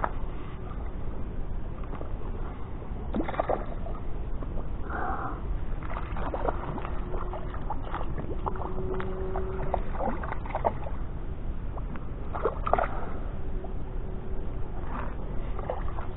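Sea water lapping and sloshing against a rocky shore, with a few small splashes at the surface, over a steady low rumble.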